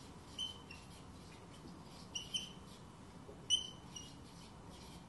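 Marker pen squeaking against a whiteboard while words are written, in three short clusters of high chirpy squeaks: about half a second in, around two seconds in and again around three and a half seconds in.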